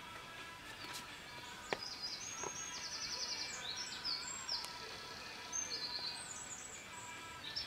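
A small songbird singing in woodland: several quick trilled phrases of rapid high notes, starting about two seconds in and running until near the end. Two sharp taps come just before, about a second in and again shortly after, over a faint steady background.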